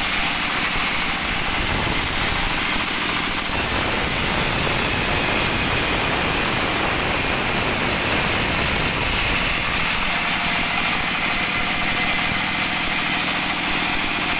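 Sawmill band saw running steadily while ripping a sengon log into boards. It makes a loud, continuous machine noise, fuller in the low range from about 4 to 10 seconds in.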